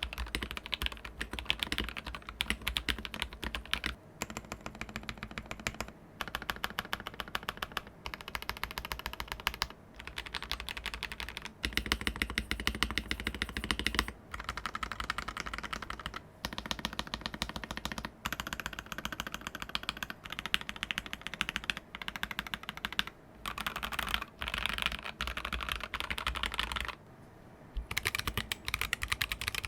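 Fast, continuous typing on a mechanical keyboard fitted with full-aluminium, anodized Aluvia keycaps. The dense run of key clicks breaks off in short pauses every few seconds, with a slight metallic ping on each key's upstroke.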